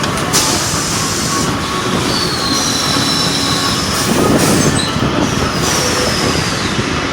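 Carousel ironing press running, with steady mechanical noise, high squealing tones that slide down in pitch, and several short bursts of hiss.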